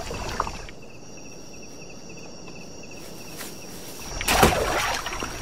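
Night rainforest insects: a steady high-pitched buzz and a fast pulsing trill. A sudden loud noise comes a little over four seconds in and lasts under a second.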